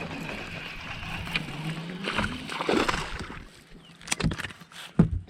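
A hooked spotted bass being landed in a fishing boat: water splashing over a steady low hum, then a couple of sharp knocks near the end.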